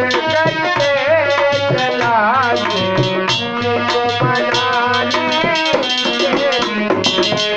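Instrumental interlude of a Hindi devotional bhajan: a lead melody with bending, ornamented notes over a steady tabla and percussion beat.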